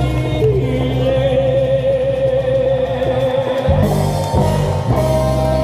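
Music with a voice holding a long, wavering note over a steady low accompaniment, then a short change and another held note near the end.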